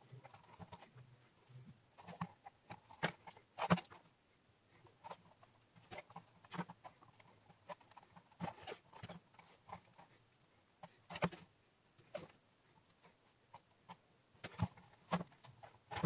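Faint, irregular light clicks and taps of metal tweezers on the wires and tactile micro switches of a hand-wired microwave keypad board, with the plastic keypad panel being handled.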